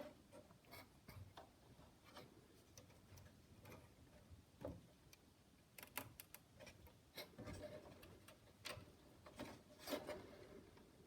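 Faint, irregular clicks and knocks of a circuit board being handled: the RM Nimbus PC-186's plug-in memory expansion card being worked loose from its pin connector, the loudest knock near the end.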